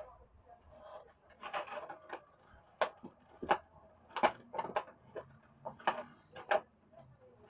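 Small hard clicks and taps from a finger BMX bike being handled and knocked against a surface, about seven sharp ones in the second half after some softer scraping.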